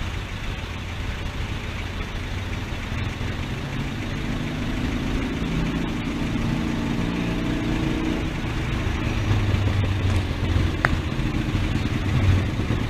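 Road traffic: motor vehicle engines running and passing, over a steady low rumble that grows a little louder toward the end.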